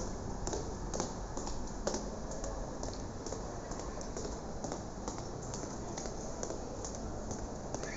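Quick footsteps on a hard tiled floor, about three sharp steps a second, over a low steady rumble.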